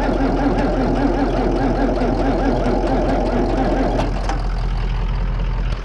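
An engine running steadily with a regular pulsing. About four seconds in, the higher part of the sound drops away and it gets a little quieter.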